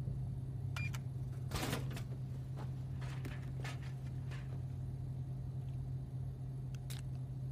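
A steady low electrical-sounding hum with a few faint clicks, and a brief soft knock about one and a half seconds in.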